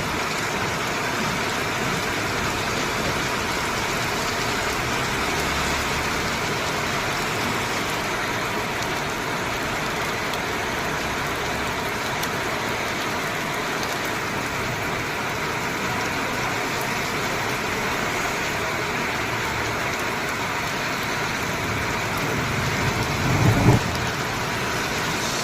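Steady rain falling, an even hiss. About 23 seconds in, a low rumble builds up to a short loud peak and fades.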